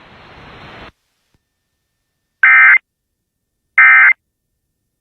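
A rising hiss cuts off about a second in. Then two short bursts of Emergency Alert System SAME end-of-message data tones, a harsh warbling screech, about a second and a half apart, signalling the end of the alert.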